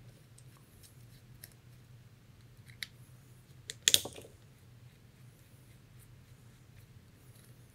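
A few small sharp metallic clicks of a hex screwdriver turning out a screw on an air rifle's trigger rail support, the loudest about four seconds in, over a low steady hum.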